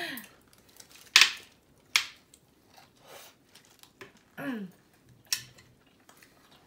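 Utensils clinking and tapping against dishes at a meal table: three sharp knocks with a few fainter taps between, and a brief murmur of a voice about halfway through.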